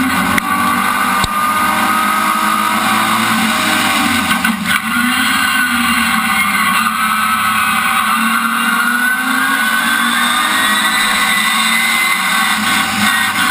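Rallycross car's engine heard from the onboard camera, running hard at racing speed, its pitch repeatedly rising and falling as the car accelerates and slows through the corners.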